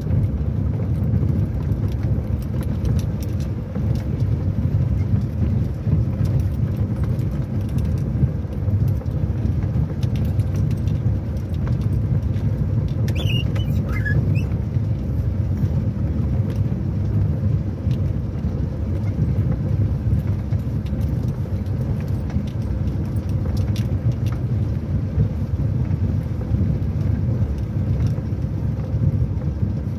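Car running over a rough, muddy dirt road, heard from inside the cabin: a steady low rumble of engine and tyres with scattered small knocks and rattles from the bumps. A brief high squeak comes about halfway through.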